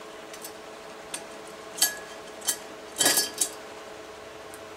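Sharp metallic clinks and taps, about half a dozen, from a Suzuki Samurai differential third member and its parts knocking together as they are handled. The loudest cluster comes about three seconds in.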